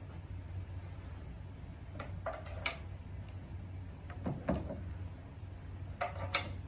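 Short knocks and clicks of rack parts and bolts being handled as the bolts are put in by hand, in three brief clusters about two seconds apart, over a steady low hum.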